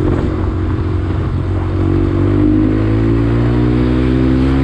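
Honda Grom's 125 cc single-cylinder engine running on the move, its revs dipping briefly and then rising from about a second and a half in before holding steady.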